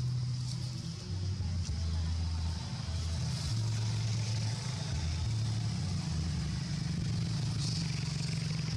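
Steady low rumble with a faint high hiss above it.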